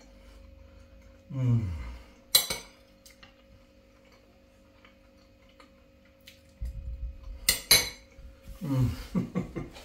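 Metal spoon clinking against a dish while scooping food: one sharp clink about two and a half seconds in and two close together near the end, with handling noise around them. Between them a man twice makes a short 'mmm' that falls in pitch.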